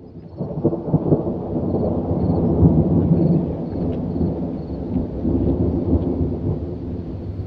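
Thunder rumbling in a long, low roll that swells in over the first second and carries on without a break.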